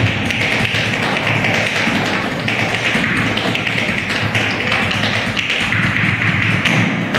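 Tap dancing: metal taps on the dancers' shoes striking the stage floor in fast, dense rhythmic runs of taps.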